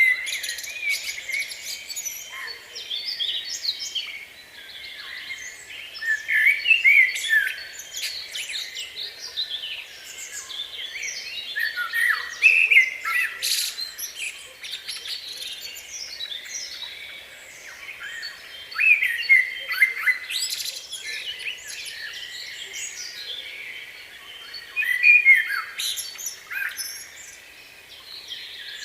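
Several small birds chirping and calling, with many short, overlapping chirps and quick pitch glides that come in louder flurries every few seconds.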